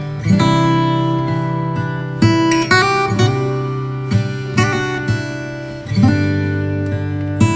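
Background music: strummed acoustic guitar chords with a steady pulse.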